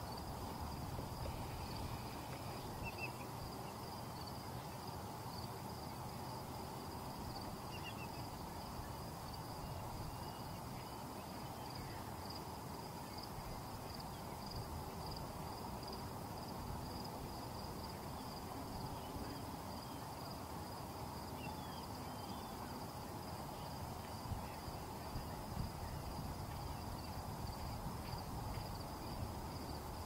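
Steady outdoor background noise with a constant high-pitched hiss, a few faint brief chirps, and some soft ticks near the end.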